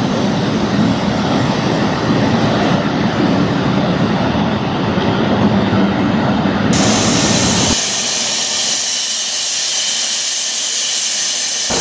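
Passenger coaches rolling along the track, a steady rumble. About seven seconds in this gives way to a loud, steady hiss of steam from LMS Jubilee 45690's open cylinder drain cocks.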